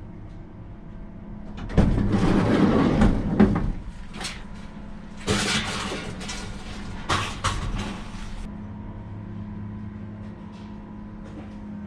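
A vehicle engine running steadily, with two loud spells of noise over it, about two and three seconds long, the second with several sharp knocks.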